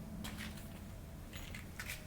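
Faint clicks and light rattles, a few scattered short knocks, over a low steady hum.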